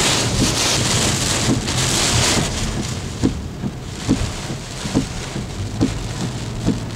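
Heavy wind-driven rain from Hurricane Isaac's eyewall pounding a moving car, loudest for the first couple of seconds and then easing a little, over a steady low rumble of the car on the road. Short thumps come at a steady pace a little faster than once a second, typical of windshield wipers on a fast setting.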